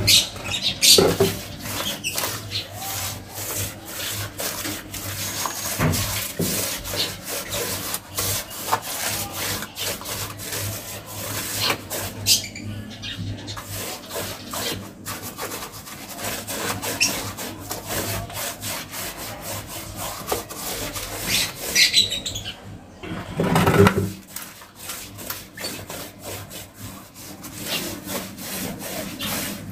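Paintbrush scrubbing waterproofing coating onto a rough concrete floor and wall corner in rapid back-and-forth strokes, bristles rubbing and scraping on the surface. One louder bump about three-quarters of the way in.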